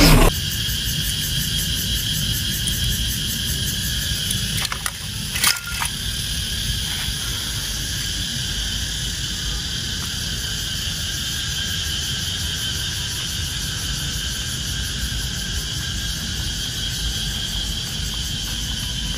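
A steady background noise with a constant high drone, broken by a few short sharp clicks about five seconds in.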